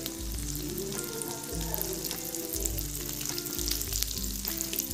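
Small amount of hot oil sizzling with scattered crackles as broken dried red chillies fry in it, under background music.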